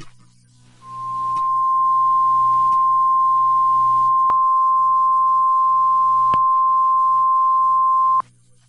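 Emergency alert attention tone: a single steady pure tone of about 1 kHz, held for about seven seconds before it cuts off abruptly, with two faint clicks partway through.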